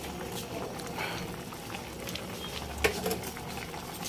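Pot of galunggong (round scad) paksiw broth at a rolling boil: steady bubbling with small pops, and one sharper click about three seconds in.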